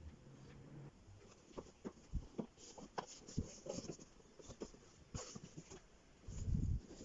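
Packaging being handled by hand during an unboxing: scattered light rustles, taps and crinkles, with a dull low thud near the end.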